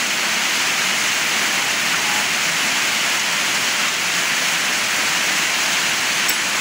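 Heavy rain falling: a loud, steady, even rush of noise with no let-up. A faint click sounds near the end.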